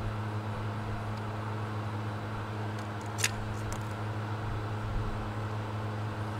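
Steady low hum of room background, with a single sharp light click a little past three seconds in and a couple of fainter ticks, from the small metal parts of a VW Beetle speedometer being lifted out of its housing.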